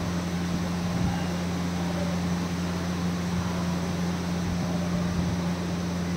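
Steady low machine hum with an even drone and hiss throughout.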